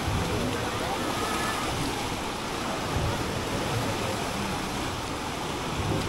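Steady rushing of churning water from a river rapids ride, with faint voices in the background.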